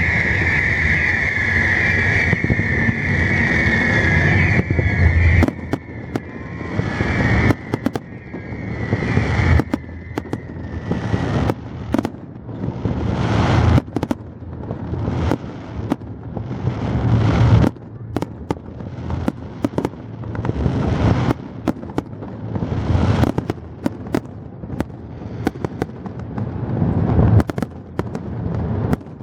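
Aerial fireworks bursting in quick succession, sharp bangs about one to two a second, each followed by crackle. A steady high tone runs through the first few seconds and fades out by about the middle.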